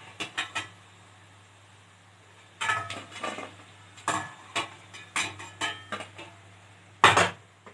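A utensil clinking and knocking against the frying pan and a plate in scattered taps, as fried pakoras are lifted out of the oil onto the plate, with the loudest knock near the end.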